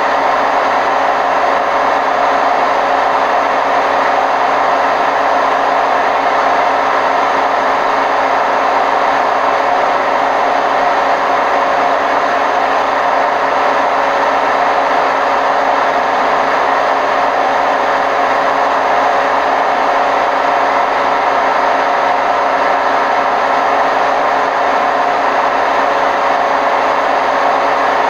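Hotpoint WMF760 washing machine spinning at a steady speed: a loud, even drone with several steady whining tones, the sound of worn-out drum bearings.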